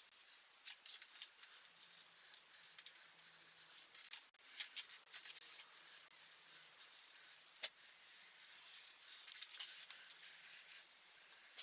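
Faint scratchy scrubbing from rust being cleaned by hand off an old bicycle's metal parts, coming in uneven strokes, with a sharp click about two-thirds of the way through.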